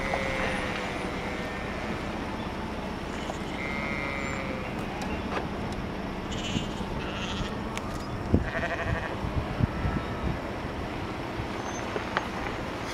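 Sheep bleating several times, short wavering calls, over the low steady running of a jeep's engine. A few sharp knocks come about two-thirds of the way through.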